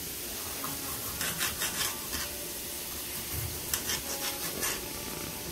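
A utensil scraping and stirring through sliced sausage in a skillet: two runs of short scraping strokes, about a second each, over a steady hiss.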